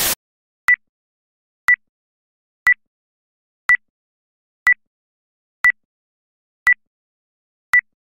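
Film-leader countdown beeps: eight short, identical electronic beeps, one each second, marking the numbers of the countdown.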